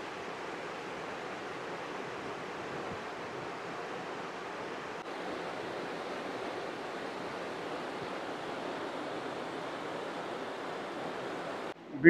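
Steady rushing of a tall mountain waterfall, water falling from a height at full force.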